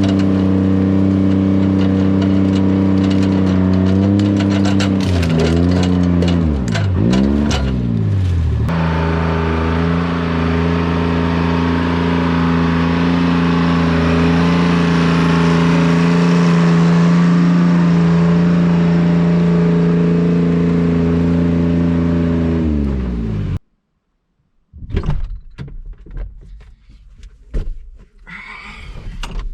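A vehicle engine running steadily, revving up and down for a few seconds, then running on until its pitch sags and it stops. After a short silence come scattered knocks and clunks.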